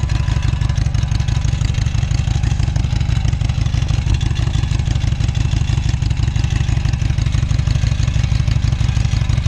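Harley-Davidson Sportster's V-twin engine running steadily at a constant speed, a low, rapid pulsing with no revving.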